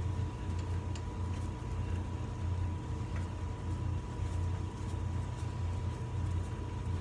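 Steady low hum with a faint steady high tone, and a few faint clicks as gloved hands work at the carburetor of a Tecumseh snowblower engine.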